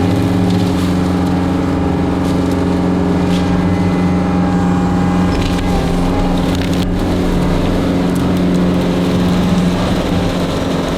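John Deere 333G skid steer's diesel engine running steadily under working throttle, with a few faint clicks over it.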